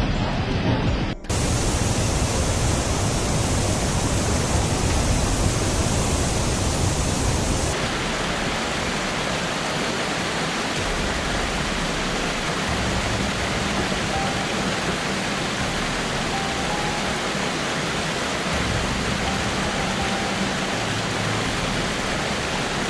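Rushing floodwater: the steady, dense noise of a fast brown torrent in spate. It changes abruptly about a second in and again near eight seconds in.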